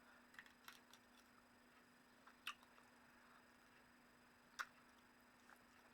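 Near silence with a few faint, sharp clicks from someone eating, spaced a second or more apart.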